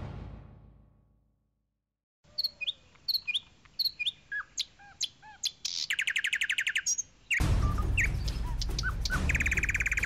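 Music fades out into a second of silence, then small birds chirp repeatedly with short, arching notes and rapid trills. About seven seconds in, a steady outdoor background noise starts abruptly under the continuing bird calls.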